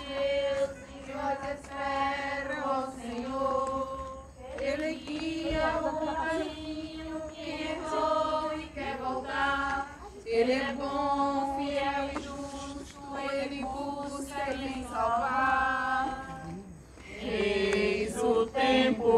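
A group of people singing a Portuguese Catholic hymn together in slow phrases of long held notes, with short breaks between the lines.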